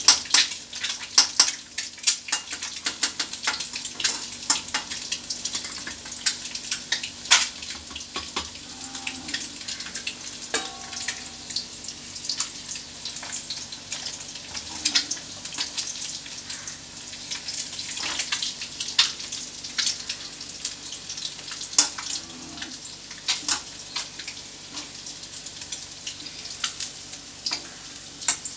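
Four whole boiled eggs frying in hot oil in a kadai: a steady sizzle full of frequent sharp spattering pops, with a metal ladle turning the eggs now and then.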